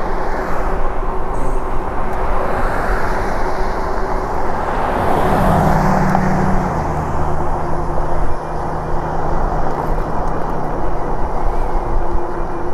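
Wind buffeting the microphone, with road noise, while riding an e-bike along a road. A low steady hum comes in about halfway through.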